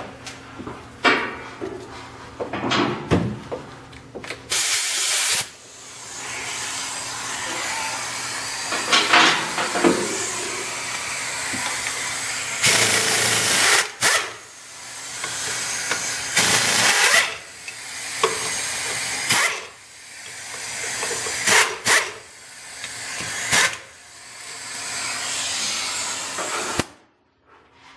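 Air ratchet running in repeated bursts with hissing exhaust air, spinning out bolts to remove the intake. Some bursts start sharply and others swell over a few seconds; the sound cuts off near the end.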